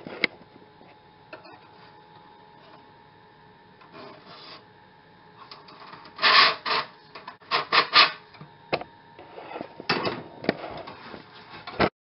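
Steel bandsaw blade coil stock being pulled out of its plastic dispenser and handled: scraping and rubbing in short, irregular bursts, loudest about six to eight seconds in.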